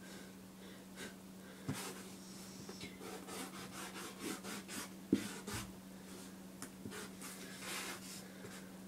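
A felt marker's 5 mm nib is dragged across plain paper in a quick run of short strokes, with a sharper knock about five seconds in. A steady low hum runs underneath.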